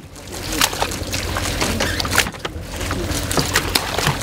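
Splashing and sloshing as common octopus in mesh bags are tipped from plastic baskets into water-filled tubs, with scattered sharp knocks and clatter, over a steady low rumble.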